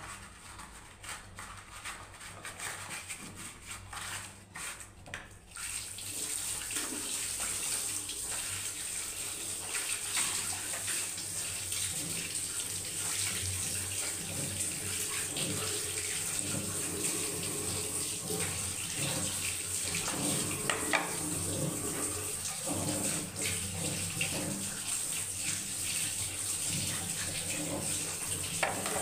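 Water running from a tap, starting about six seconds in and going on steadily, as hands wash a plastic kitchen storage container under it. Before the tap opens there are light handling clicks.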